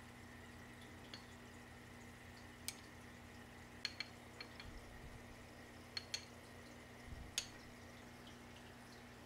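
Light clicks of a small metal spoon against a glass jar as fine sand is spooned onto the soil, about eight scattered ticks over a steady faint hum.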